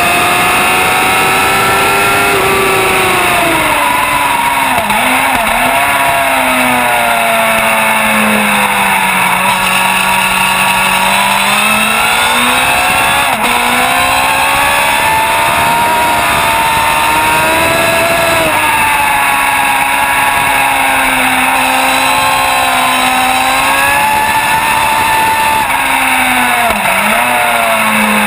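Race motorcycle engine heard from onboard, screaming at high revs, its pitch falling as the bike brakes and changes down for corners and climbing again as it accelerates out, with brief dips at each gear change. Heavy wind rush runs under it throughout.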